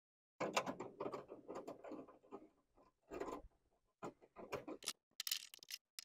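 Irregular light clicks, taps and scraping from hands working the tailgate latch's metal rods and plastic clips, with a denser cluster about three seconds in and a hissier scrape near the end.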